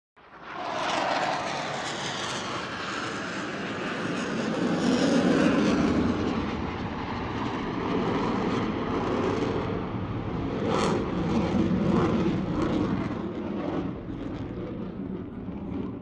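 US Navy Blue Angels jets passing by: a loud jet roar that builds quickly, peaks about five seconds in, surges again near the end, then starts to fade.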